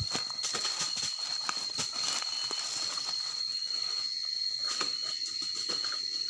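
Dry leaf litter crackling and rustling in a string of small irregular clicks as fallen jengkol pods are picked up by hand from the ground, over a steady high-pitched tone.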